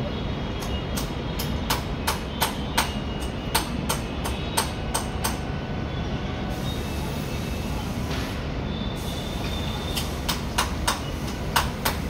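Steady low rumble with irregularly spaced sharp clicks, a run of them in the first five seconds and another near the end.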